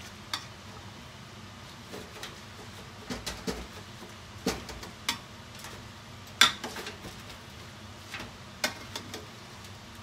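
A cooking utensil knocking and scraping against a stainless steel pot as rice noodles are tossed and mixed, in irregular clinks, the loudest about six and a half seconds in, over a steady low hiss.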